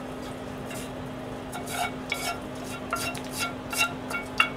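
A cooking utensil stirring and clinking against a frying pan of sausages and vegetables: a series of light scrapes and metallic clinks, growing busier after the first second and a half, over a steady low hum.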